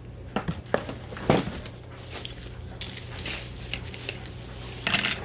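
Plastic bubble wrap crinkling and rustling as it is handled and pulled away from a boxed tool, with scattered clicks and a sharper crackle about a second in.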